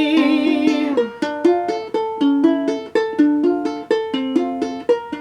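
A singer's held note on the word "why" fades out about a second in. It is followed by a ukulele played alone in a steady rhythm of plucked chords and notes, a short instrumental break in the song.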